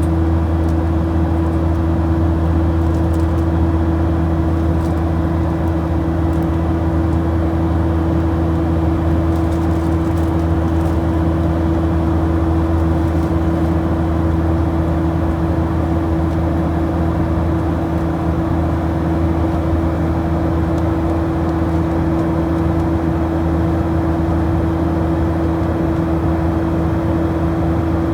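Steady drone of an aircraft in flight, heard from inside the cabin: an unchanging low hum with a constant pitched tone running through it.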